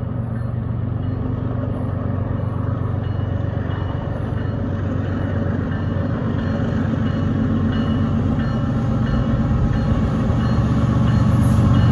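Diesel locomotive of a CSX freight train approaching, its engine's low, steady drone growing louder.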